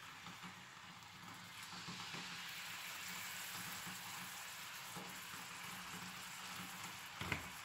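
Beef slices sizzling faintly in hot lard in a frying pan, the sizzle growing a little fuller about two seconds in as more slices go in. A short knock near the end.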